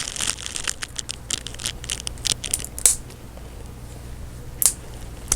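Plastic wheel of a 1/18 scale diecast model car crackling and snapping in many small clicks as it is pried off its axle, the sound of the wheel cracking as it comes apart. The clicks thin out after about three seconds, with two single clicks near the end.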